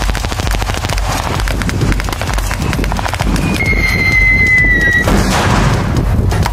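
Rapid rifle gunfire, many shots in quick succession. A thin, steady high tone sounds for about a second and a half midway and falls slightly in pitch.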